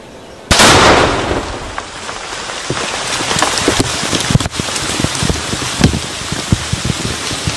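A Tannerite charge blowing a beaver dam: one sharp, very loud blast about half a second in. Then mud, water and debris rain back down onto the pond, a dense patter with many scattered thuds and splashes.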